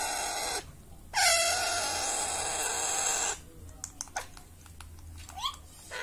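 Baby Alexandrine parakeet giving two long, harsh, raspy food-begging calls, then going quieter with a few faint clicks and a short rising squeak near the end.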